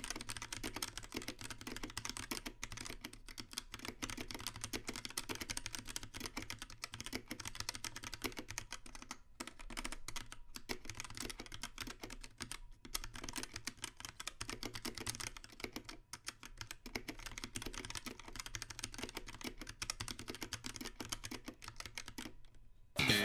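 Fast, continuous typing on a 60% mechanical keyboard with SMK orange switches on a steel plate in a plastic case, with WASD keycaps: a dense stream of key clicks with a few brief pauses. Music starts right at the end.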